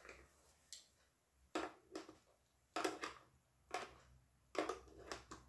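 A plastic toy coin clicking and knocking against a plastic toy piggy bank as a dog noses it into the slot: a series of short, light, irregularly spaced clicks.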